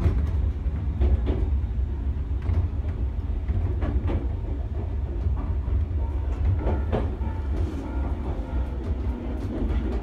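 Train running along the track, heard from inside the car: a steady low rumble of wheels on rails, with scattered clicks as the wheels pass over rail joints and points.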